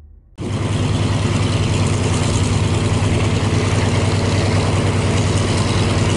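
Piston engines of World War II-era propeller fighters running steadily on the ground with their propellers turning: a loud, even drone with a strong low hum, starting abruptly just under half a second in.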